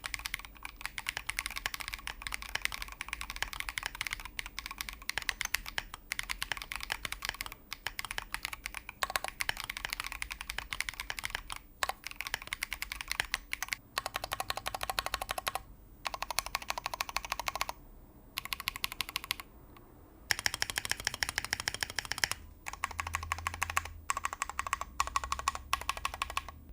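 Typing on a Blade60 aluminium 60% custom mechanical keyboard fitted with lubed Glorious Panda tactile switches and PBT keycaps: fast runs of keystrokes with short pauses between bursts.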